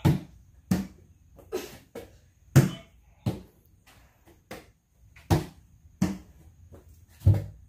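Repeated thumps of a person landing on the floor during an explosive bodyweight exercise, about ten impacts at a little over one a second, unevenly spaced.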